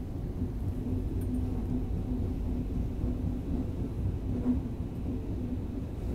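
Tokyo Metro Yurakucho Line subway train running between stations in the tunnel, heard from inside the car: a steady low rumble with a faint steady hum beneath it.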